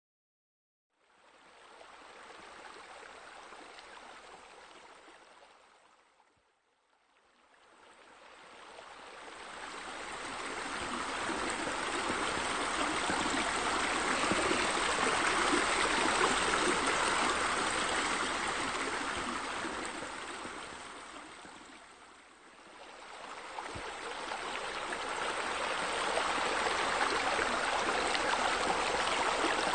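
Running, splashing water from a pool's spillway and bubbler, a steady rush. It fades in about a second in, drops almost away around six seconds in, and sinks again briefly near twenty-two seconds before swelling back.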